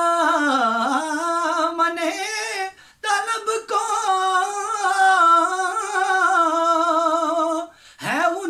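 A man singing an Urdu naat unaccompanied, drawing the word "daman" out into long, wavering melismatic notes. He breaks off briefly about three seconds in and again near the end.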